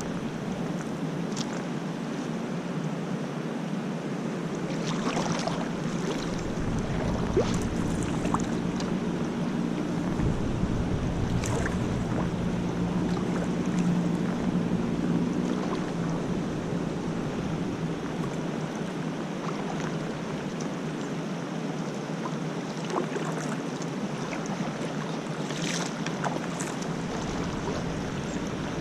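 Steady rushing of river water around a small kayak, with wind rumbling on the microphone through the middle stretch and a few brief sharp knocks.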